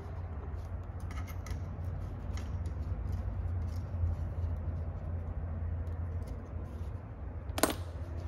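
Faint metallic clicks and ticks of a 1/8 Allen key working grub screws out of a steel retrieval tool, over a steady low hum. One sharper click comes near the end.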